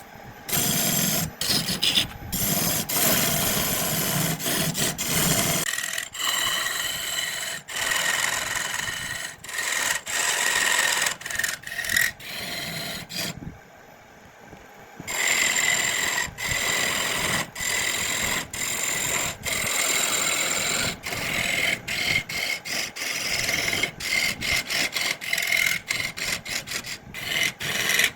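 A tool scraping against wood in many short, stop-start strokes, with a steady high whine underneath in the second half.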